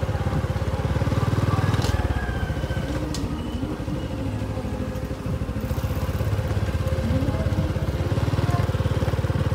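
A small engine running steadily, a low pulsing rumble that carries on under everything.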